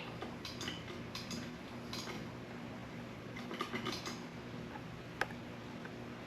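Light clinks and clicks of small hard tools and parts being handled, with a cluster of clicks near the middle and one sharp click about five seconds in.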